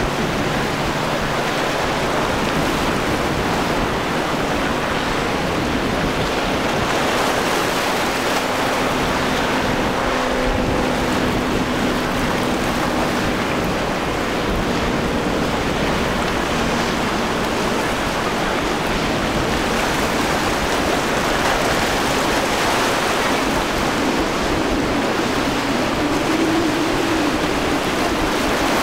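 Surf and churning wake water rushing in a steady wash, with the faint steady drone of a boat's outboard motor running through it near the middle.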